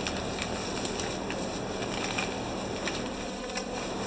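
Plastic bubble wrap rustling and crinkling with small scattered crackles as it is handled and pulled off a packaged part.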